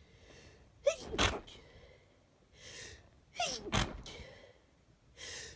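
A person with a head cold sneezing twice, about two and a half seconds apart, each sneeze preceded by a sharp in-breath. Another in-breath begins near the end.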